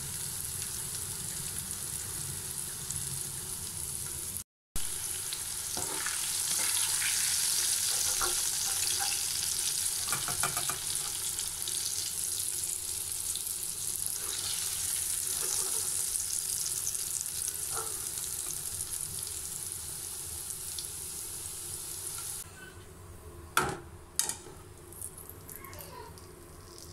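Spice-coated potato sticks frying in hot oil in a kadai: a steady sizzle and bubbling, with a slotted spoon stirring and scooping through them. The sizzle drops away a little over three-quarters through, followed by a few sharp knocks.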